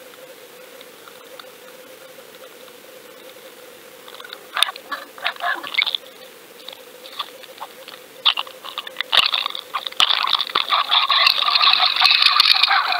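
Water noise heard through an underwater camera housing trailing on a fishing line. At first a faint steady hiss with a low hum, then from about four seconds in irregular rattling and clicking, turning into a continuous loud crackling rush of water from about ten seconds in as the camera moves fast through the water.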